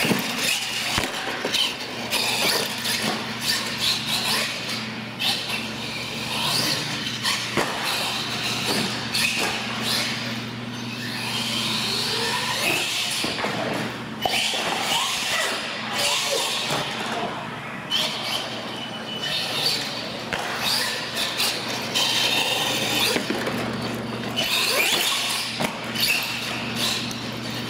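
Electric RC monster trucks running on a smooth concrete floor: motors whining up and down in pitch as the throttle comes on and off, tyres squealing, and now and then the clatter of a truck landing or bumping a ramp. A steady low hum sits underneath.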